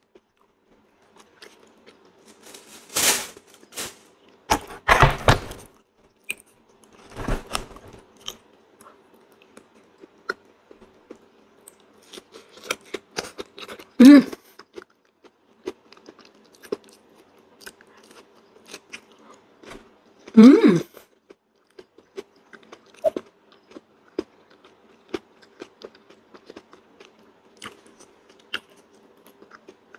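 Close-up mouth sounds of a person eating soft durian flesh: wet chewing and smacking in scattered bursts, with two short voiced sounds from the eater, about halfway through and about two-thirds of the way through.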